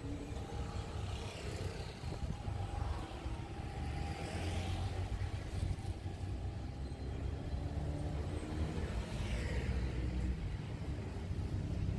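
Road traffic running steadily with a low rumble.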